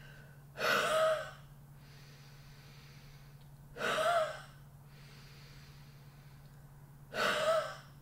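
A woman does three huffs, forceful open-mouthed breaths out, each under a second and about three seconds apart. This is the huffing of the active cycle of breathing technique, used to move mucus up from the smaller airways.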